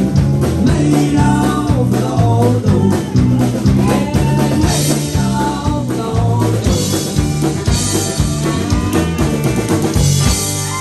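A live band playing loudly: a drum kit keeps a steady beat under electric bass guitar, with a pedal steel guitar and keyboard above.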